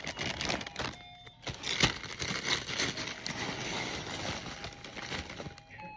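Gift wrapping rustling and crinkling in irregular crackles as a present is unwrapped by hand.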